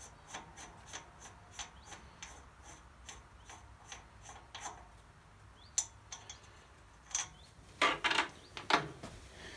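Briggs & Stratton V-twin flywheel turned slowly by hand, its new starter ring gear rubbing and scraping on the engine housing with a regular tick about three times a second. The ring gear is too thick and drags on the housing. A few louder knocks near the end.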